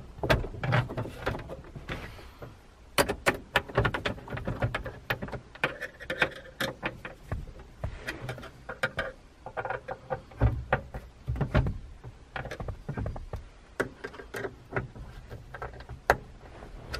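Irregular clicks, taps and knocks of plastic interior fittings being handled and pressed into place at the headliner around the rear-view mirror, with rustling between them.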